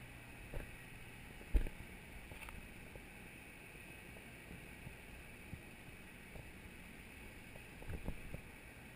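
Faint steady hiss of open air with a few dull thumps and knocks. The loudest comes about a second and a half in, and a small cluster near the end is footsteps starting down a metal spiral staircase.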